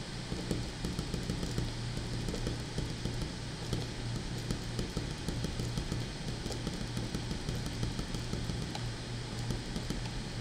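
Pen writing on paper: quick, irregular scratching strokes of handwritten characters, over a steady low hum.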